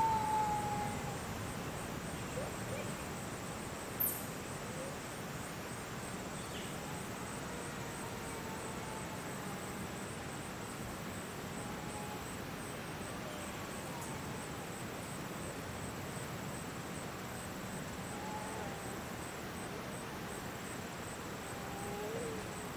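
Outdoor ambience: a steady background hiss with a faint, high, evenly pulsing insect trill, a few faint short bird calls, and a single sharp click about four seconds in.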